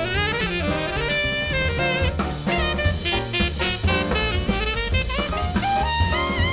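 Background jazz music with a gliding melodic lead over a steady drum beat.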